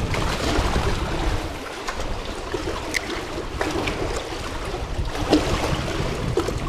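Steady rush of river current flowing under a bridge, with wind rumbling on the microphone and a few light clicks.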